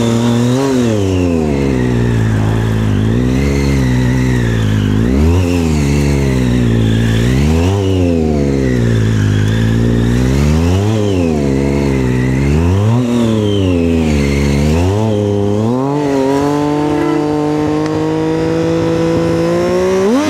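Triumph Street Triple 675's inline three-cylinder engine revving up and dropping back again and again as the bike is flicked through tight turns, about once every one to two seconds. Near the end it holds a steadier, slowly rising pitch, then revs up sharply.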